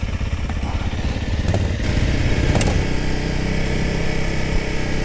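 Brand-new Honda CRF300L Rally's single-cylinder engine running on its stock exhaust as the bike is ridden slowly, its note changing about three seconds in.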